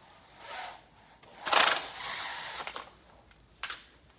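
Scraping and rattling of debris being handled in a burned-house demolition, in noisy bursts. The loudest comes about a second and a half in, and a short sharp click follows near the end.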